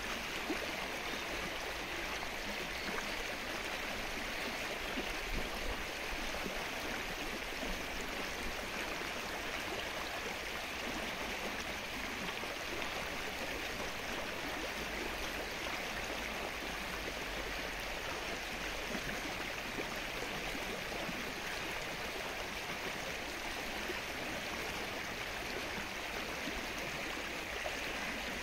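Rain falling steadily on the open water of a lake, an even patter of drops with no let-up.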